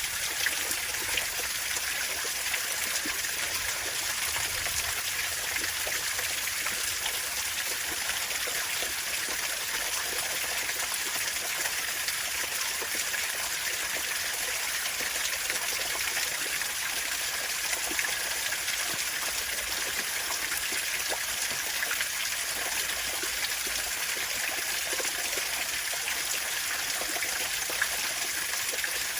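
Clean water falling and trickling steadily, a constant splashing hiss with many small drop sounds in it.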